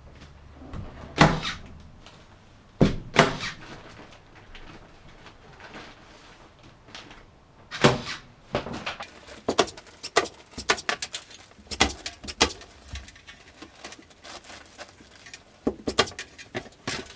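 Irregular knocks, clunks and clicks of hard objects being handled, a few single sharp knocks at first, then a denser run of clicking and clattering from about halfway, and again near the end.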